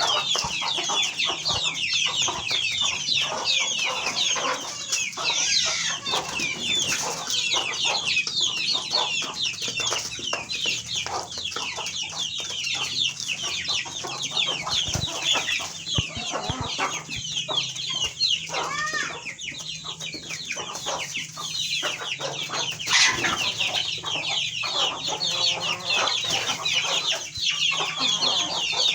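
A large flock of chickens in a poultry house, many birds calling at once in a dense, continuous chorus of short high calls.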